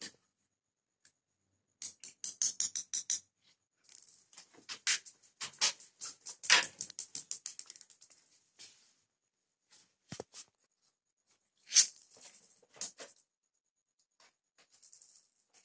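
Quick clicks and taps of a small ball bouncing and rolling across a hard floor while a kitten bats at it, in bursts with pauses between, including a fast run of taps early on and one sharper tap near the end.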